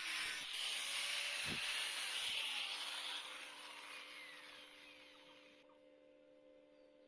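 Stick-welding arc on a 6013 electrode, a steady crackling hiss. It dies away over about two seconds from about three seconds in, leaving a faint steady hum.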